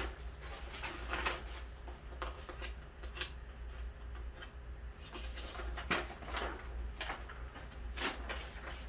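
Scattered light clicks, knocks and rustles of hands handling parts and paper, over a steady low hum.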